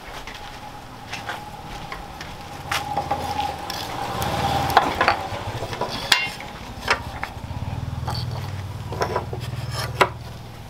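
Hand-filing a forged steel machete blade clamped to a wooden bench: long rasping strokes of the file along the steel, with a few sharp metallic clicks and a brief ring between strokes.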